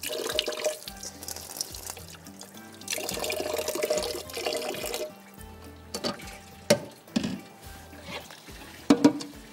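Tap water running into a sink in spells as grated cabbage is washed, with a couple of sharp knocks in the last few seconds.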